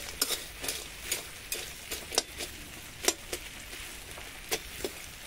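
Crab pieces frying in oil in a metal kadhai, sizzling, while a metal ladle scrapes and knocks against the pan at irregular intervals as they are stirred.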